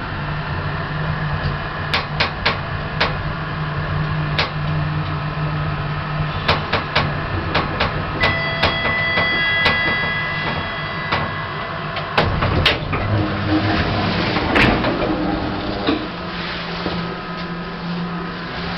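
Lift in operation: a string of sharp mechanical clicks and knocks over a steady low hum, with a sustained electronic beep about eight to eleven seconds in and a burst of door noise near fourteen seconds.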